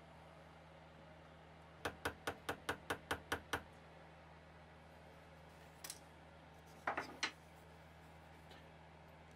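Small hand work with metal hardware on a wooden ornament: a quick, even run of about nine light clicks, then three more clicks a few seconds later, over a steady low hum.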